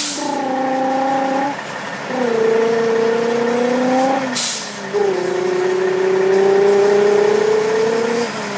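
A man imitating a Subaru engine with his voice: a buzzing hum that climbs slowly in pitch, breaks off and starts again lower, three times, like a car shifting up through the gears. The last run is the longest.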